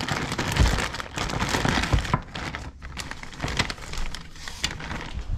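Clear plastic packaging bags crinkling and rustling as they are torn open and handled to get a coil of battery cable out, with a couple of dull bumps.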